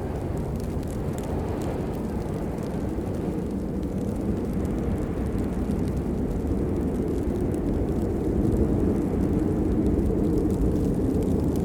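Steady heavy rain: a deep, low rushing with faint scattered drop ticks, swelling slightly about eight seconds in.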